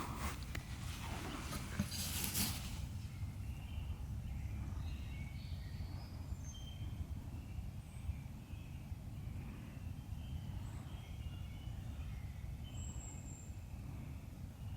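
Short rustles of movement in the first couple of seconds, then faint, scattered high bird chirps over a steady low rumble of wind on the microphone.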